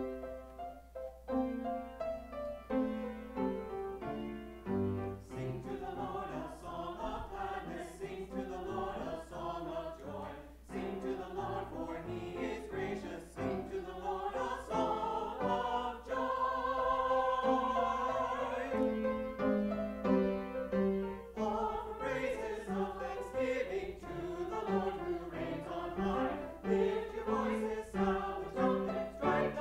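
Small mixed church choir of women's and men's voices singing a choral piece in parts, starting suddenly after a quiet moment.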